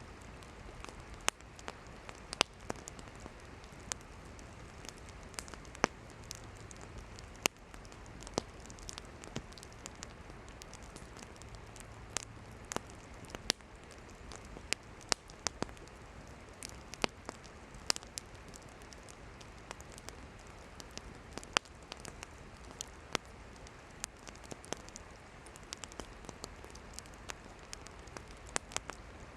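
Wood campfire burning: a steady hiss of flames with sharp, irregular pops and snaps of burning firewood.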